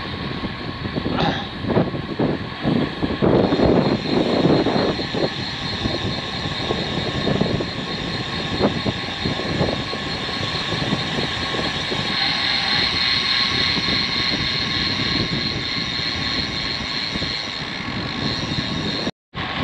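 Wind rushing over a GoPro Hero 9's microphone on a road bike at speed, with tyre hiss on wet asphalt; gusty in the first half, steadier later, and cut off briefly near the end.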